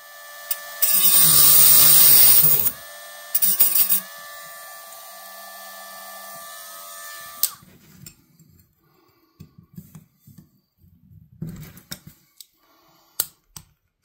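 A Dremel rotary tool runs at a steady high whine while grinding metal on a Swiss Army knife. The grinding is loud and hissy for a couple of seconds near the start, then returns briefly. The motor stops suddenly about seven and a half seconds in, and a few light clicks of the knife being handled follow.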